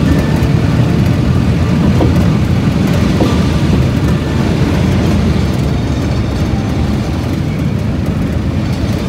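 Steady engine and road noise of a moving motor vehicle, heard from on board.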